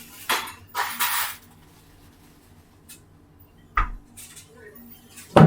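Clattering and clinking of household objects handled, in four short separate bursts with quiet between.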